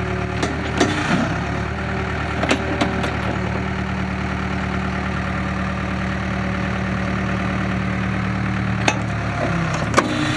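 Case 580 Super K backhoe's four-cylinder diesel engine running steadily, with a few short sharp clicks or clanks over it, the loudest near the end.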